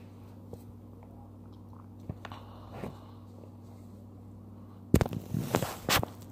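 Handling noise on a phone microphone: a low steady hum with a few faint clicks, then near the end a loud second or so of rubbing, crackling and knocking as the phone is moved and its lens covered.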